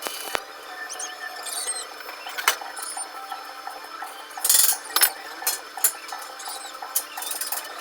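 Hand tools working on metal parts: irregular clicks, clinks and knocks, with a couple of louder clatters about four and a half and five seconds in.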